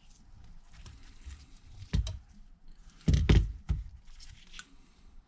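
A few thumps and light clicks of a phone being handled on the bench while its SIM card tray is pushed back in. The loudest is a quick cluster of knocks about three seconds in.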